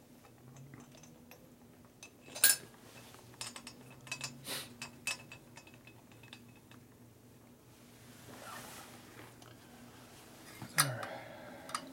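Metal engine parts and hand tools clinking and tapping against a Harley-Davidson cylinder head as it is fitted in the frame: scattered light clicks, the loudest about two and a half seconds in, a run of them a second later, and another sharp knock near the end.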